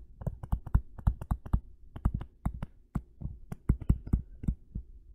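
Stylus clicking and tapping on a tablet screen during handwriting: an irregular run of sharp clicks, several a second.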